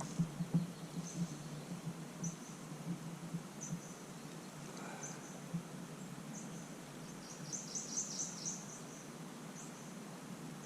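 Insects chirping outdoors: short, high chirps repeating roughly once a second, with a quick run of several chirps about eight seconds in.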